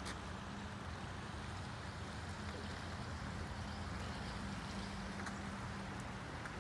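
A creek running over rocks: a steady rush of water, with a low steady hum underneath.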